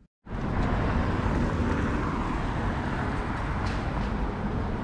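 City street traffic noise: a steady wash of passing cars and street hum, starting abruptly a fraction of a second in after a brief silence.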